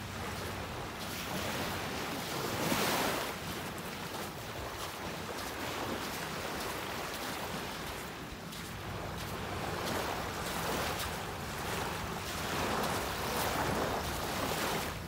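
Surf washing on a sandy beach, a steady hiss of water that swells and eases every few seconds, with some wind.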